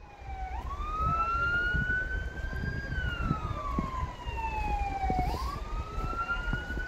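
Emergency vehicle siren in a slow wail, its pitch rising and falling in long sweeps of about four to five seconds each, over a low rumble.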